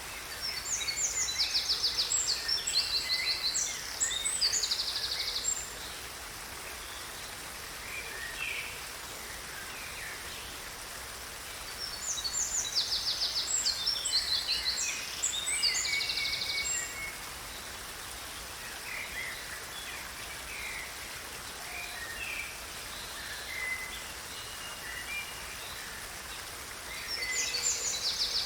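Songbirds singing in two long bouts of rapid, high trills, with softer scattered calls between, over the steady rush of a river.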